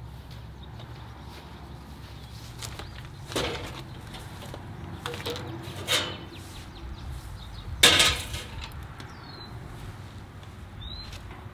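Three sharp knocks over a steady low hum, the loudest about eight seconds in, and a bird giving short falling chirps near the end.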